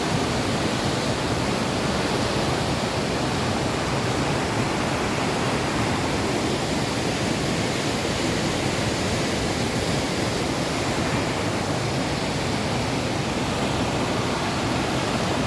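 Mountain stream rushing over rocks, a steady, full roar of water with no let-up.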